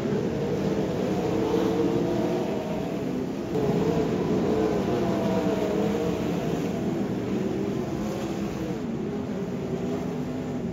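A field of sprint cars racing on a dirt oval, several V8 engines at once, their pitch rising and falling in waves as the cars go round.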